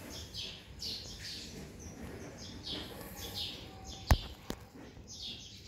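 Small birds chirping in the background, short high chirps coming several times a second. A sharp click about four seconds in, the loudest sound, with a fainter click just after.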